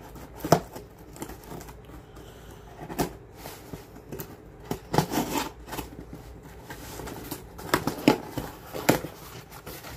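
Shipping package being opened by hand: packaging rustling and crinkling, with scattered sharp clicks and knocks, a cluster of louder ones near the end.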